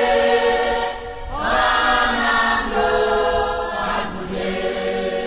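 Choir singing a slow, repetitive Christian chant to Jesus, in long held notes that shift pitch every second or so.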